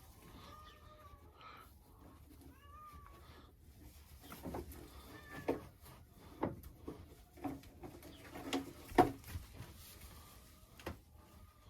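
Faint, short, high mewing animal calls in the first few seconds, then scattered knocks and rustles from calves moving about in a straw-bedded pen, the loudest knock about nine seconds in.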